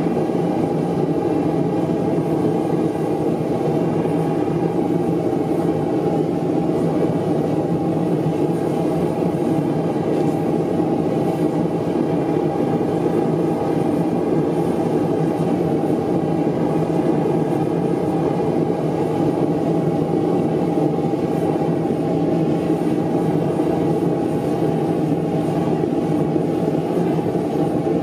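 Homemade pipe propane burner firing into an ammo can forge, a steady low rushing roar of the gas flame that holds even throughout.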